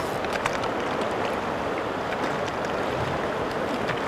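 Steady rush of flowing river water around a drifting raft, with scattered small splashes and drips from the oars.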